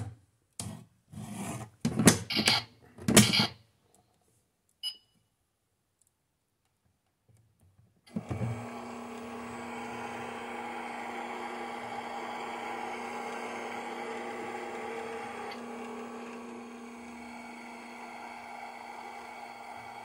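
Hard plastic knocks and clatter as a container is set into a toy microwave and its door is shut, followed about five seconds in by a short electronic beep. About eight seconds in, the toy microwave starts its steady running hum with one constant low tone, while its timer counts down.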